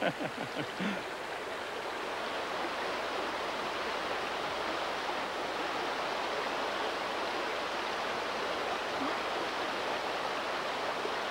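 River water rushing and tumbling over rocks in fast white water, a steady rush.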